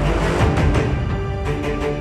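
Background music: held notes over regular percussion hits.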